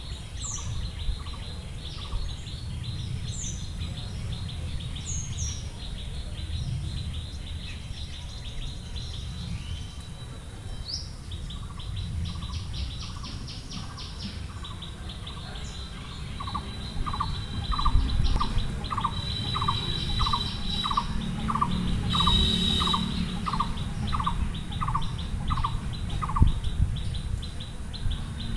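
Birds chirping and calling, with one voice repeating a short note about twice a second in the second half, over a steady low rumble.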